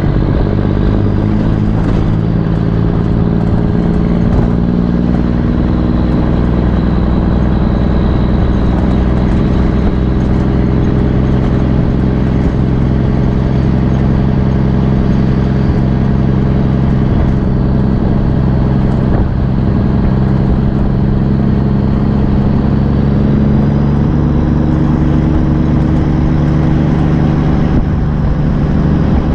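Straight-piped small-cam Cummins NTC 240 inline-six diesel in a Ford LN9000 truck running loud under way, its exhaust note steady with a few steps in pitch.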